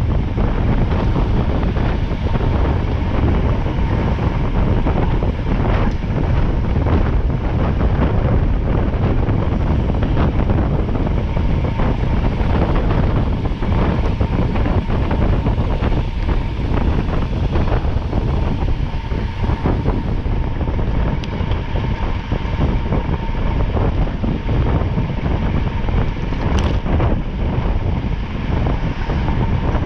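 Strong wind buffeting the microphone over a steady low rumble of a moving vehicle, with a brief high chirp near the end.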